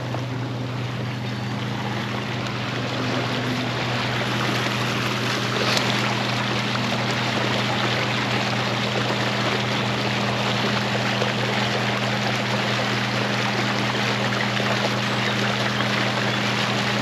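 Warm-water discharge outflow gushing steadily into the river: a continuous rush of churning water with a steady low hum underneath. A single brief click about six seconds in.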